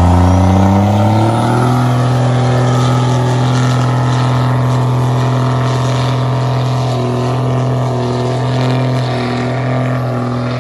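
Lifted diesel pickup doing a burnout on rough chip-and-seal pavement: the engine revs up over the first second or so, then is held at high rpm while the rear tires spin and smoke, with a steady hiss over the engine note.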